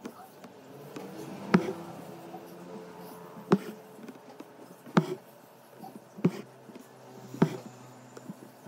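Hand embroidery on hooped canvas: the needle punches through the taut fabric in five sharp taps, one every one to two seconds, as one-strand cotton floss is stitched.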